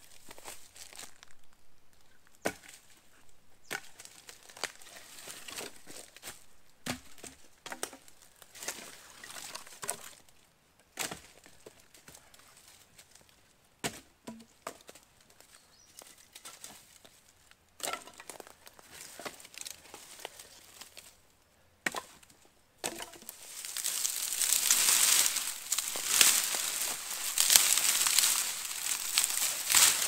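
Firewood being worked by hand: scattered sharp wooden knocks and cracks. From about two-thirds of the way through, a dense run of loud, crackly rustling takes over.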